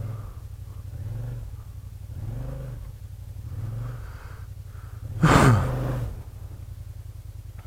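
Kymco AK550 maxi-scooter's parallel-twin engine running at low road speed, its low note swelling and easing a few times. About five seconds in comes a loud, short rushing sound that falls in pitch.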